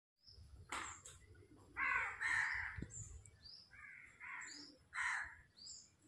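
Crows cawing: a string of harsh, rasping caws, with smaller birds chirping thinly in between.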